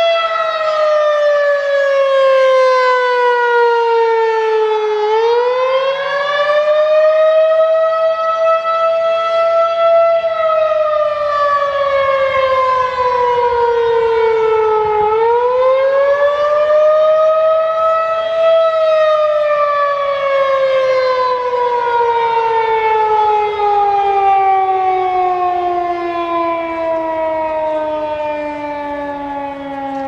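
Federal Signal 2001-DC outdoor warning siren sounding the attack signal. The tone slides down and back up about every ten seconds, twice. From a little past halfway it falls slowly and steadily in pitch as the siren winds down at the end of the test.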